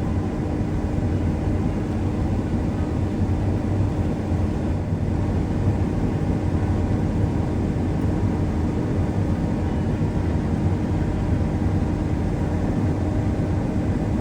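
Steady low engine drone of harvest machinery, mixed with wind noise. A steady hum in the drone drops out about five seconds in.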